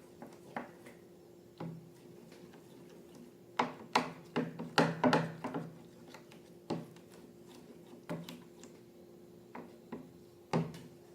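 Irregular small taps and clicks of objects being handled, bunched together about four to five and a half seconds in, over a faint steady hum.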